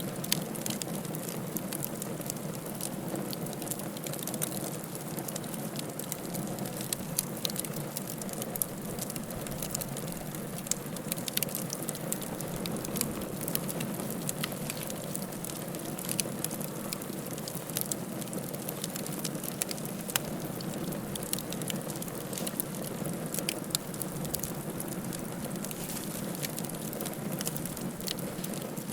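Wood fire crackling in a fireplace: a steady low rush of flames with frequent, irregular sharp pops and snaps.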